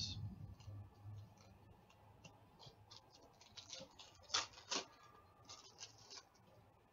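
Foil wrapper of an Upper Deck Series 1 hockey card pack being torn open and crinkled by hand: faint scattered crinkles and scratches, with two sharper rips about four and a half seconds in.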